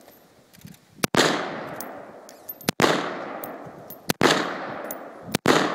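M4-style carbine fired semi-automatically: four single shots about a second and a half apart, each a sharp crack followed by an echo that fades over about a second.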